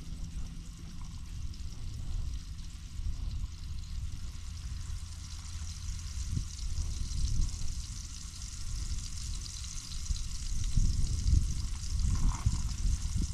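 A redfish fillet frying in oil in a pan on a propane camp stove, with a steady high sizzle. A low, gusting rumble, louder in the last few seconds, runs underneath it.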